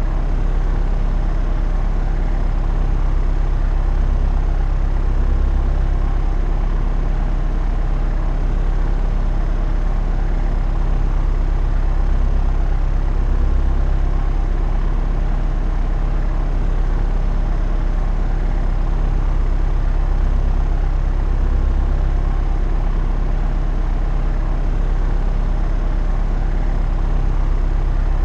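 Propeller airplane in flight: steady, unchanging engine and propeller drone with a strong low hum and even overtones.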